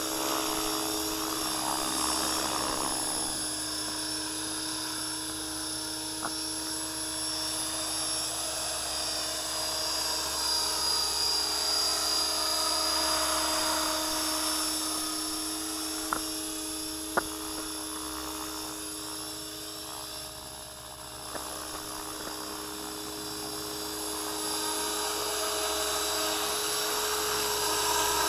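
Align T-Rex 500 electric RC helicopter in flight: the steady, high-pitched whine of its motor and rotor, swelling and fading as the helicopter moves nearer and farther. Two sharp clicks come a little past halfway.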